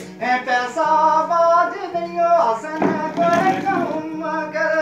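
A voice singing a Gojri verse in long, drawn-out phrases over a steady low drone, with a short rustling noise about three seconds in.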